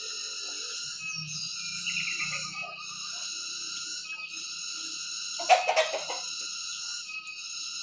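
Caged pleci dakun white-eye chirping in short, quick trills over a steady high background hum, with one louder, sharper call a little past halfway.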